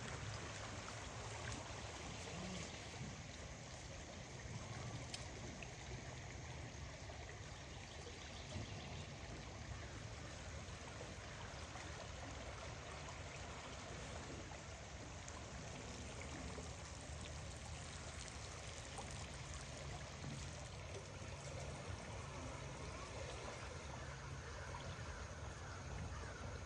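Steady rushing of water from a river in flood, with no breaks or rhythm.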